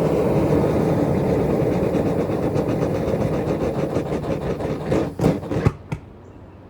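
A forge's burner running with a steady rush, then dying away about five seconds in with a few sharp pops as it is shut down.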